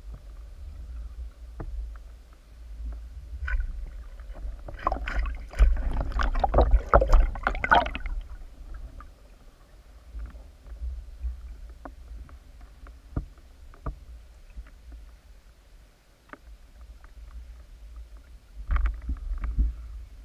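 Muffled underwater sound picked up through an action camera's waterproof housing: a steady low rumble, with a burst of rapid clicking and knocking about five seconds in and a shorter one near the end.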